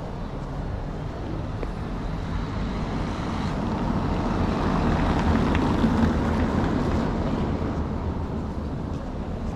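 A motor vehicle passing by over a steady low traffic rumble: it grows louder to a peak around the middle, then fades away.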